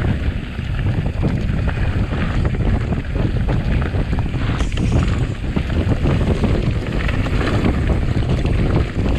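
Wind rumbling on the microphone of a camera on a moving mountain bike, with a constant clatter of small knocks and rattles from the bike running over rough ground.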